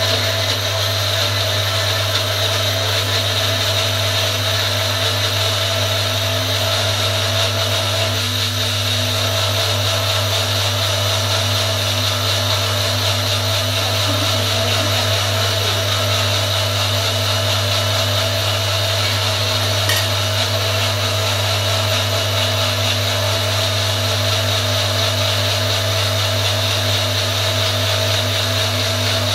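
NutriPro personal blender running continuously, a steady low motor hum under a high whine, as it grinds tomatoes, green chillies and coriander into a thin green chutney.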